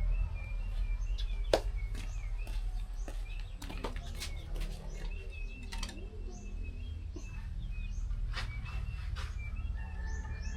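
Small birds chirping over and over, with scattered sharp clicks and knocks and a steady low rumble underneath.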